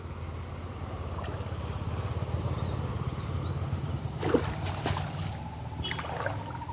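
Shallow stream water sloshing and splashing as hands work a cast net in it, with a few sharper splashes about four to five seconds in, over a steady low rumble.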